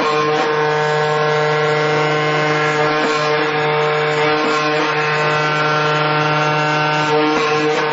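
AOKE CNC flatbed cutter running, its cutting head working through a red coil-loop car floor mat: a steady, even machine hum with a noisy cutting sound over it.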